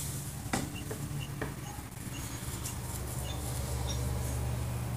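Low steady hum heard through a video-call audio feed, with a few faint clicks and small, short high chirps scattered through it.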